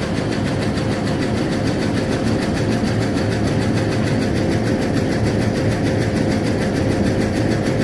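Diesel locomotive engine idling close by: a steady low rumble with a constant hum over it.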